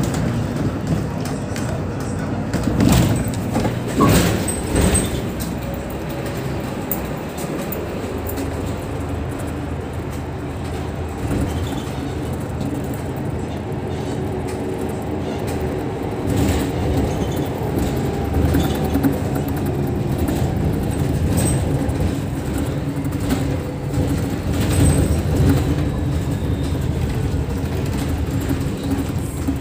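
Mercedes-Benz Citaro city bus heard from inside near the front while driving: its engine runs steadily under road noise, with a few sharp knocks and rattles about three to five seconds in.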